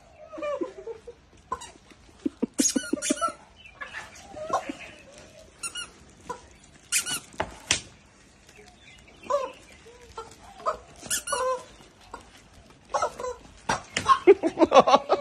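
Screaming rubber chicken toys squawking again and again in short bursts as they are squeezed, with a few sharp knocks of a broom striking.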